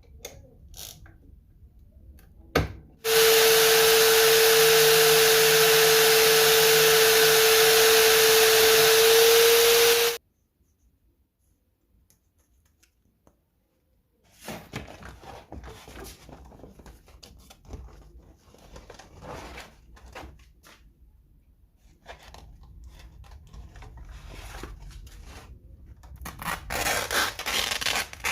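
An electric power tool's motor runs steadily for about seven seconds with a loud, steady whine, then stops abruptly. Later come scattered knocks and rubbing of workshop handling.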